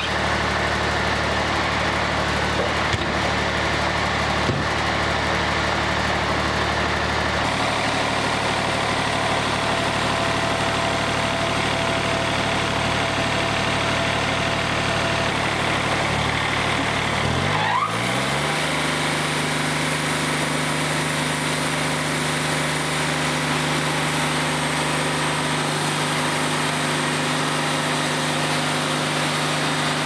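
Yanmar diesel engine of a Wood-Mizer LT40 Wide band sawmill running steadily; a little past halfway its pitch rises and settles at a new steady speed.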